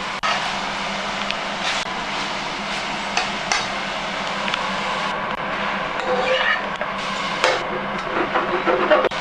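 Udon noodles with prawns and squid sizzling steadily in a hot frying pan as they are stir-fried, with a few sharp knocks and scrapes of the utensil against the pan.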